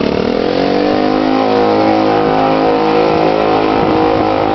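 Nippi trike's engine pulling away at full throttle: its pitch rises over about the first second, then holds a steady high note, easing slightly near the end.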